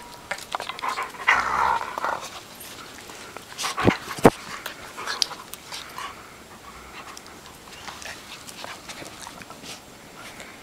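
A German Shepherd and a toy poodle playing and scuffling at close range, with panting and small scrabbling clicks. There is a short rough burst about a second in, and two sharp knocks about four seconds in.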